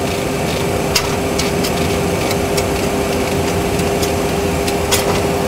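Steady rushing cockpit noise of a Boeing 737 Classic flight simulator with a steady hum running through it, and a scatter of sharp clicks from the mode control panel's altitude selector knob being turned down toward 10,000 feet.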